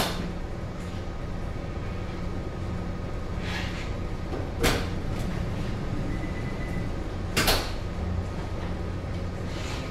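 Steady low hum of a large ship's machinery, broken by three sharp knocks: one at the start, one about halfway and one about three-quarters in.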